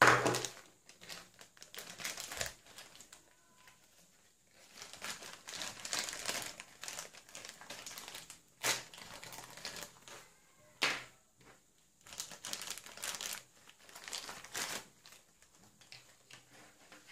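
Clear plastic toy wrapper crinkling and rustling as it is handled and torn open, in irregular bursts, with a few sharp cracks or knocks.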